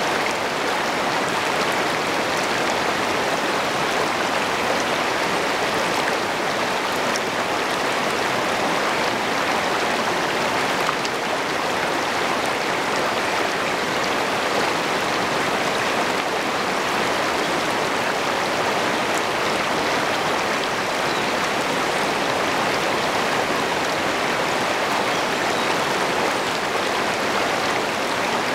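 Shallow river rapids rushing over rocks, close up at water level: a steady, loud rush of water.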